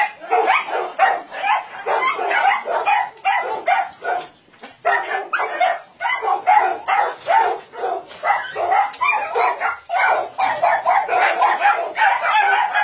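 Many dogs barking at once: a dense, continuous run of overlapping barks, with a short lull about four and a half seconds in.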